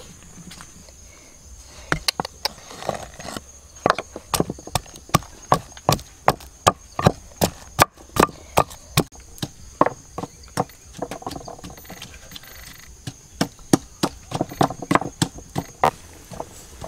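Wooden pestle pounding garlic cloves in a wooden mortar: dull knocks about two to three a second, starting about two seconds in, with a short pause in the middle before the pounding resumes.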